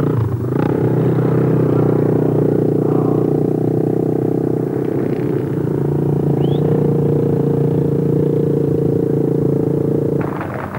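Small trail motorcycle engine running at a steady, even pitch; the sound changes abruptly near the end.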